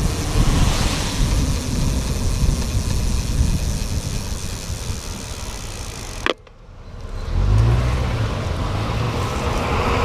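Wind rumbling on the microphone and tyre hiss on a wet road while riding a bicycle through car traffic. About six seconds in the sound drops out sharply with a click, then builds back up, and a low steady hum comes in.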